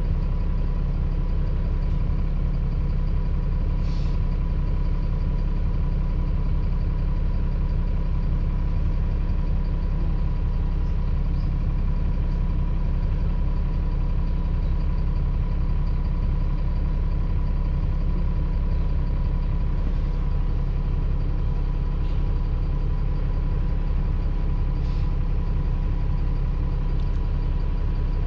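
Alexander Dennis Enviro400 double-decker bus engine running steadily at an unchanging pitch, a constant low drone with a faint steady whine above it.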